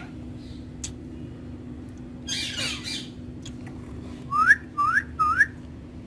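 Rose-ringed (ringneck) parakeets calling: a harsh squawk about two seconds in, then three quick, loud rising calls near the end. A steady low hum runs underneath.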